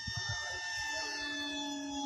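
Electric RC airplane's brushless motor and three-blade propeller whining steadily at several pitches, a lower tone joining about halfway, with wind buffeting the microphone.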